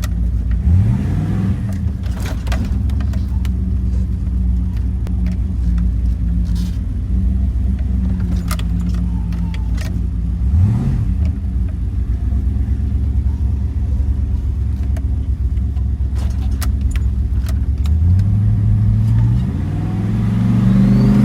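Turbocharged 383 stroker small-block Chevy V8 in a Land Cruiser idling, blipped up briefly about a second in and again midway. Near the end a longer rev builds, with a faint high turbo whistle rising with it.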